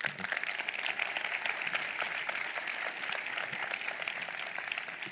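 Audience applauding: a dense patter of many hands clapping, starting abruptly and thinning out near the end.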